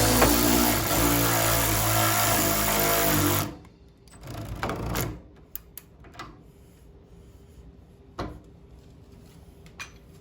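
Background music that cuts off abruptly about three and a half seconds in, leaving a quiet garage with a brief rushing swell and a few scattered light knocks.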